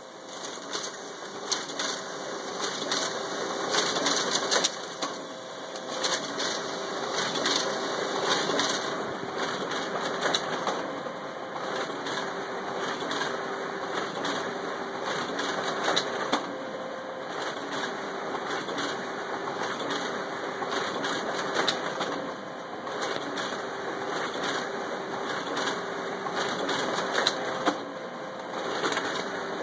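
Canon imageRUNNER ADVANCE 8105 copier and finisher running: a steady motor hum under a dense, rapid clatter of paper-handling mechanisms.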